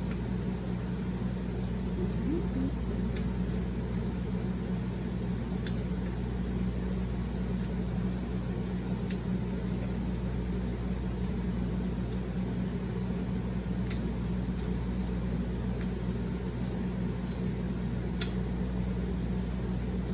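Close-up eating sounds: chewing and tearing short rib meat off the bone, with scattered small wet clicks, over a steady low hum.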